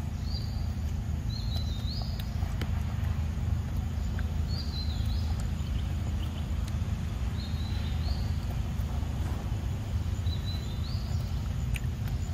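A bird repeats a short high whistled phrase that steps up in pitch, every two to three seconds, over a low steady rumble, with a few faint clicks.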